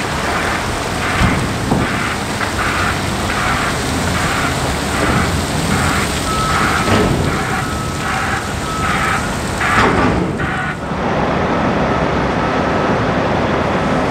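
A vehicle's reversing alarm pulsing about once every two-thirds of a second, stopping about eleven seconds in, over a steady rushing noise of wind and vehicle traffic. A faint steady high tone sounds through the second half.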